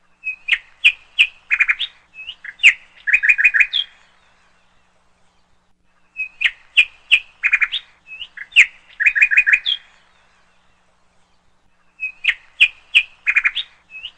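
Bird chirping and twittering in quick phrases of short notes and trills. The identical phrase comes three times with a pause of about two seconds between: a looped bird-song clip.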